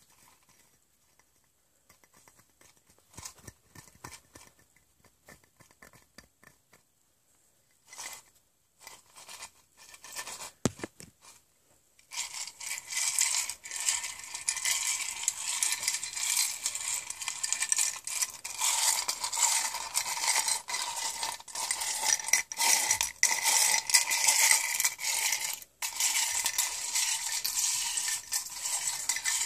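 Ice cubes rattling and clinking against a cup. A few light taps and clicks come first, then about twelve seconds in a dense, continuous clatter begins.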